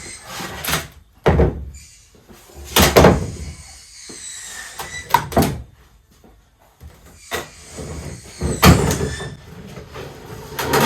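About half a dozen separate knocks and scrapes, irregularly spaced a second or two apart, from hard objects being handled and worked.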